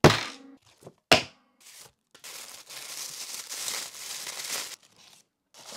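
Two sharp knocks from the black cardboard box being handled and opened, at the start and about a second in. Then black tissue paper crinkles and tears for about two and a half seconds as it is pulled open past its round Samsung seal sticker.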